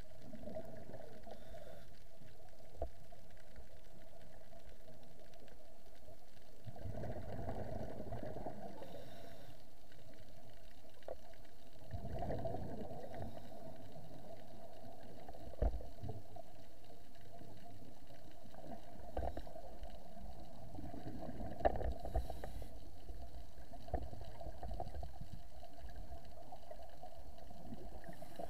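Muffled underwater sound heard through an action camera's waterproof housing: a steady hum, with swells of scuba exhaust bubbles every few seconds and a few sharp clicks, the loudest about two-thirds of the way through.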